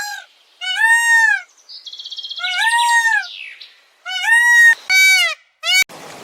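An animal calling about five times, each call a clear note under a second long that rises and then falls in pitch, with a buzzy rattling sound about two seconds in.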